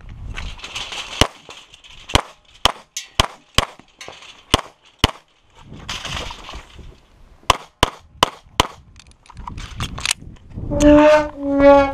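Springfield XDm 5.25" 9mm pistol fired through a timed course of fire: a first shot about a second in, then quick pairs of shots, about eleven in all, with a pause of roughly two seconds midway.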